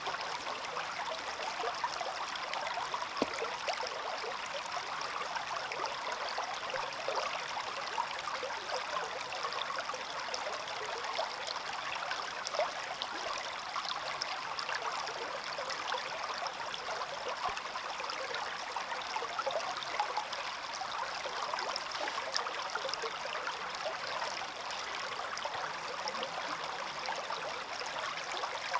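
Small stream flowing steadily over stones, a continuous babble with small trickles and splashes.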